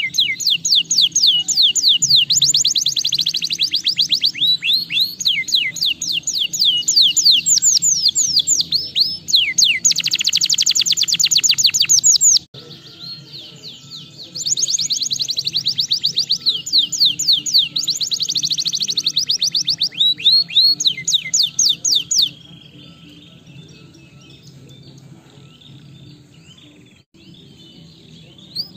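Domestic canary singing, with long fast trills of rapidly repeated sweeping notes. The song breaks off for a couple of seconds about twelve seconds in and resumes. For the last several seconds it drops to soft scattered twitters.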